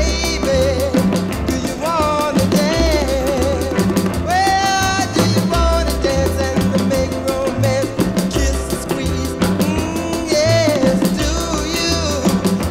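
Background music: a song with a bass line moving from note to note, drums, and a wavering lead melody on top.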